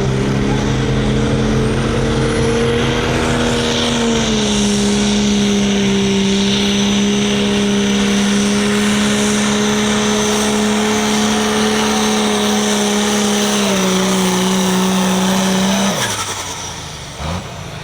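Hot farm class pulling tractor's modified diesel engine running at full throttle through a pull. The note holds steady, dips slightly about four seconds in and again near the end, then cuts off sharply as the run ends.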